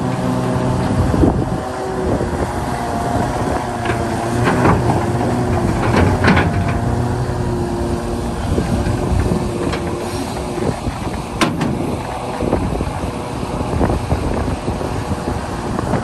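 Hitachi 670LC hydraulic excavator working: its diesel engine running steadily under load, with a whine that wavers in pitch through the first half, and several sharp clanks, the loudest about eleven seconds in.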